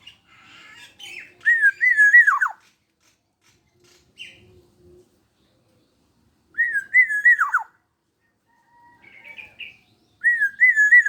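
Kepodang (black-naped oriole) singing: three loud fluting whistled phrases, each wavering around one pitch and then dropping away at its end, with softer chattering notes between them.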